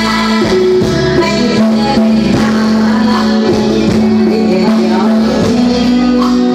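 Live Thai luk thung band music played loud through a stage sound system, with a singer's voice over the band.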